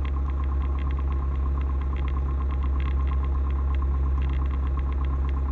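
Light aircraft's piston engine and propeller idling steadily at about 1,000 RPM, heard inside the cabin, with the throttle brought back after the run-up checks.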